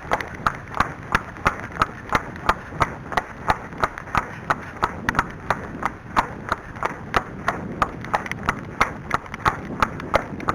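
Arabian horse's hooves beating on the track at a trot, an even rhythm of about three sharp hoofbeats a second.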